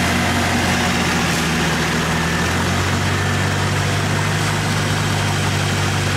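Off-road 4x4's engine running at a steady idle, a low drone whose pitch steps slightly lower about three seconds in.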